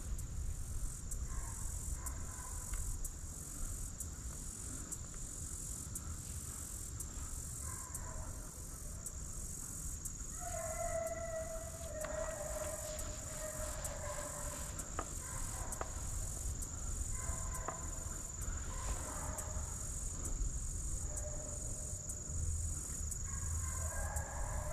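Steady high buzz of insects, with deer hounds baying on and off through it: several long, drawn-out bawls that come and go.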